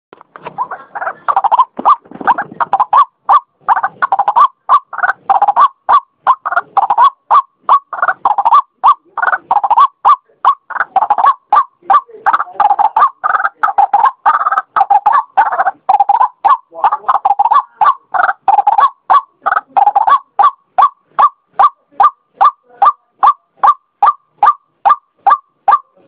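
White-breasted waterhen calling its repeated 'ruak-ruak' notes. They come thick and overlapping for about the first twenty seconds, then settle into a steady, even series of about two to three notes a second.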